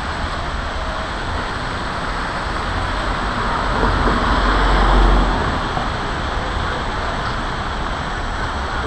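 Street traffic on a busy city road: steady tyre and engine noise, swelling as a car passes close by about halfway through.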